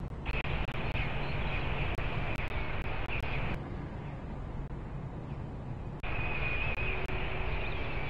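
Peregrine falcon chicks calling: two stretches of thin, wavering high cries, the first in the opening few seconds and the second starting about six seconds in, over a steady low rumble.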